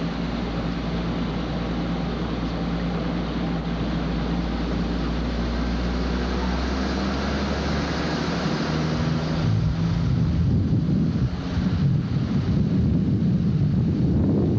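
Vehicle engine running with road noise, heard from inside a moving vehicle; a steady low hum that grows louder and rougher from about ten seconds in.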